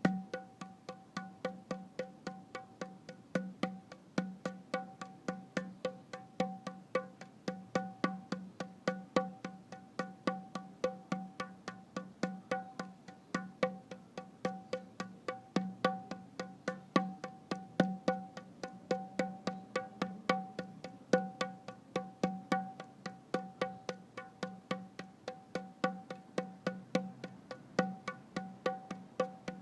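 Background music: a held drone of steady tones with a dry, woody clicking beat about three times a second.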